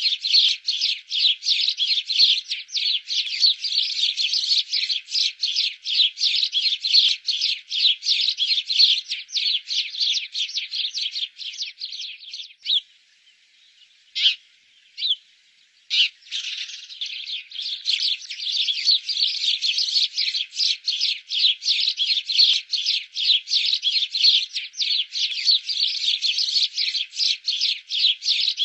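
Sparrow chirping in a rapid, continuous run of short, high chirps, several a second. The chirping breaks off for about three seconds roughly halfway through, with only a few single chirps in the gap, then resumes.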